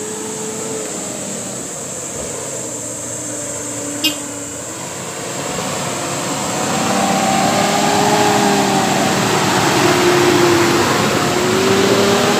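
A Nissan Safari 4x4's engine running as it climbs a dirt trail, its pitch rising and falling with the revs and growing louder from about six seconds in as it draws alongside. A single sharp click comes about four seconds in.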